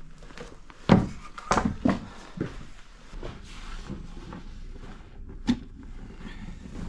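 Irregular wooden knocks and clunks as firewood is handled and cut, the loudest about a second in, a few more in quick succession soon after, and one sharp knock near the end.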